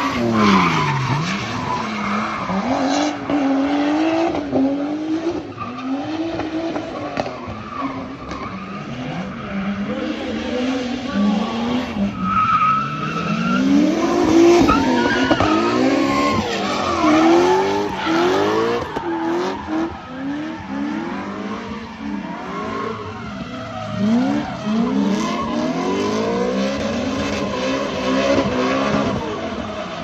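Nissan S13's stock RB25DET turbocharged straight-six revving up and dropping back over and over while drifting, with the rear tyres skidding and squealing.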